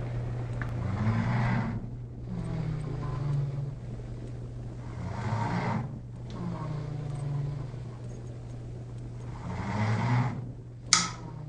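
Person snoring in slow cycles about four seconds apart, each snore a swelling, low, wavering drone, over a steady low hum. A sharp click comes near the end.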